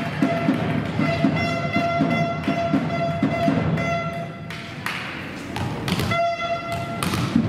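Music with a held tone and a pulsing beat, with a few sharp thuds in the second half.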